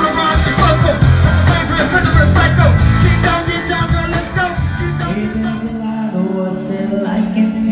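Live band music with drums, guitar and singing. About five seconds in it cuts to another live band, playing a sparser passage of held chords with little drumming.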